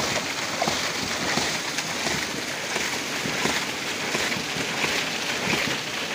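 Water rushing and splashing from the waste-valve outlet of a homemade PVC hydraulic ram pump, with small irregular knocks through the steady rush.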